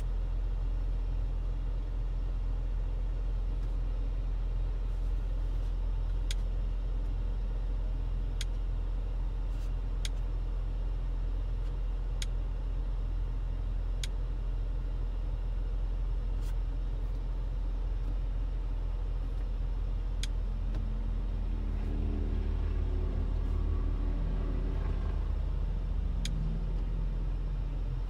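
2022 Audi SQ5 Sportback's turbocharged V6 idling with a steady low exhaust rumble. Near the end the engine note swells and then drops back. A few sharp clicks are scattered through.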